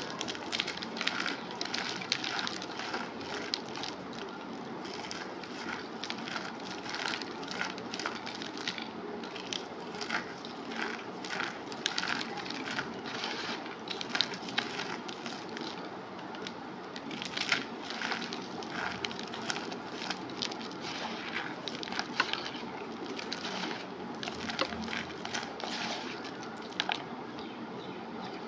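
Compacted cornstarch chunks being crushed and crumbled by hand: a continuous run of soft, irregular crackles and crunches, several a second, over a steady faint hiss.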